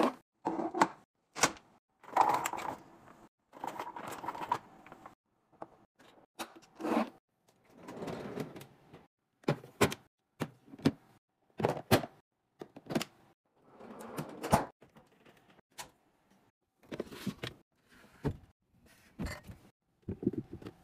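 Kitchen and fridge restocking handling sounds: a quick, irregular series of sharp clicks and knocks from plastic food containers and lids being handled and set down on the counter and fridge shelves, with short rustling stretches between them.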